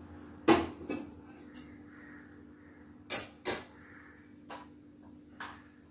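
Kitchenware handled on a stone countertop: a sharp clack about half a second in, then a series of lighter knocks and clinks, two of them close together past the middle. A faint steady hum runs underneath.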